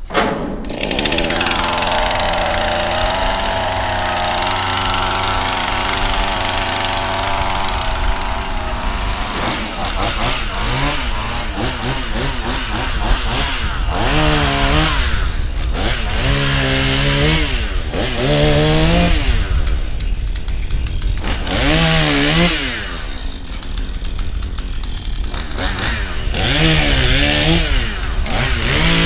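Chainsaw running, held steady at high speed for several seconds, then revved up and down again and again from about ten seconds in.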